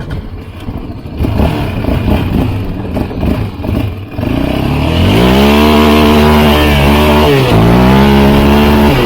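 ATV engine running hard. For the first few seconds it is rough and uneven, then from about four seconds in it is held at high revs as a loud, steady tone, with a brief drop in revs about seven seconds in before it picks up again.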